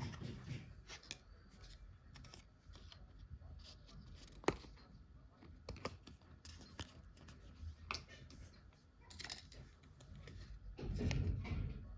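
Hands handling and unwrapping toy packaging: scattered small clicks and rustles, a sharp tap about four and a half seconds in, and a louder rustle near the end.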